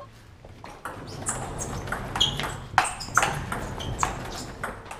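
Table tennis rally: the ball clicking back and forth off the bats and the table in a quick, irregular run of sharp ticks.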